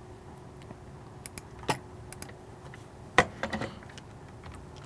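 Computer keyboard and mouse clicks: a handful of separate sharp clicks and taps, the loudest a little past three seconds in with a short cluster right after, over a faint steady hum.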